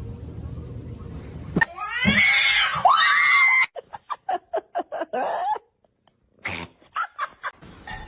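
A cat yowling: drawn-out, wavering cries, then quick runs of short, clipped calls.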